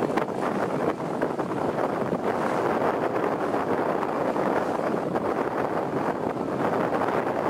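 Small motorboat under way: a steady rush of wind on the microphone mixed with the noise of the boat's motor and the water along the hull.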